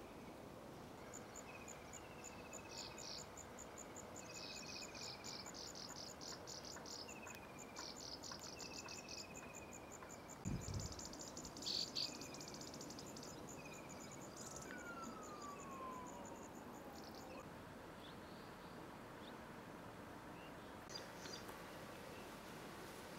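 Faint outdoor birdsong and insect calls: a short falling chirped note repeated about once a second, fast high trills, and one long falling whistle about 15 s in. A low thump and two sharp knocks come about halfway through.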